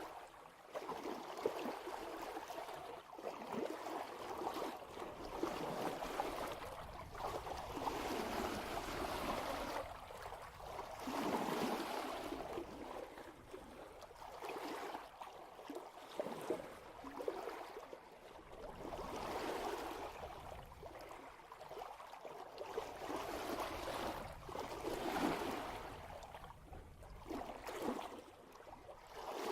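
Water rushing and gurgling past a sailboat's bow at about 3 knots, swelling and easing every few seconds as the hull meets each wave.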